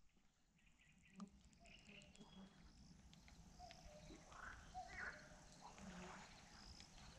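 Faint dawn birdsong: several birds calling at once in short chirps, whistles and trills, over a low background rumble.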